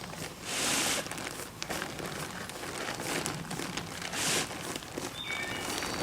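Crinkly sheet material rustling as it is handled, in a few short bursts, the loudest about half a second in.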